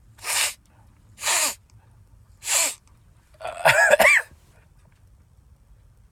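A man sneezing repeatedly, set off by snorted cayenne pepper: three short hissing bursts about a second apart, then a louder voiced sneeze about four seconds in.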